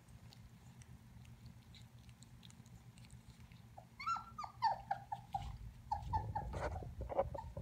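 Puppy whimpering in a quick run of short, high, falling whines that start about halfway through, after a few seconds of faint licking at the milk bowl. A low rustle runs under the last whines.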